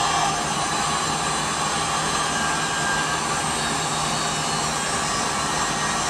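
Electric heat gun running steadily, its fan blowing hot air with a constant low hum, shrinking heat-shrink tubing over a freshly crimped lug on a heavy-gauge battery cable.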